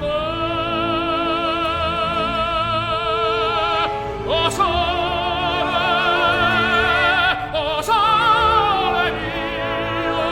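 Operatic singing: a voice holding long notes with wide vibrato, moving to a new phrase about four seconds in and again near eight seconds.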